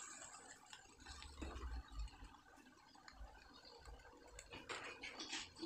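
Faint simmering of sauce with noodles in a wok, a low hiss broken by a few light clicks and taps.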